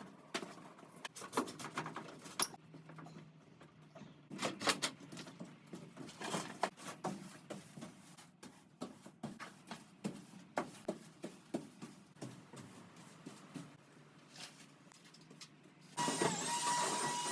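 Irregular knocks, clicks and clatter of hand demolition work inside a caravan shell. About a second before the end it cuts abruptly to a steady hiss with a steady high tone.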